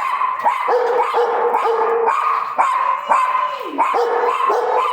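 Several dogs barking and whining continuously, short yips over long high-pitched whines, the excited noise of dogs eager for the groomer.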